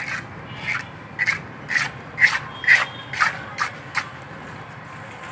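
Rhythmic scraping of a hand tool over wet cement, about two short strokes a second, stopping after about four seconds, as the surface of a cast cement stove part is worked and smoothed.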